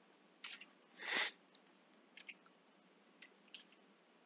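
Faint computer keyboard keystrokes and clicks, a scattering of short sharp ticks as code is typed, with a brief soft hiss of noise about a second in.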